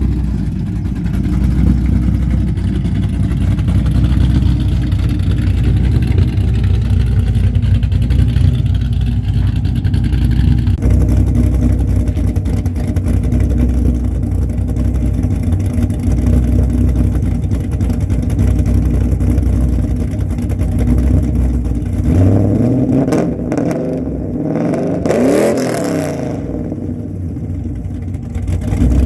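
Swapped iron-block 6.0 V8 with a TSP cam and PRC heads idling in a 1998 Pontiac Trans Am WS6, then revved up twice near the end.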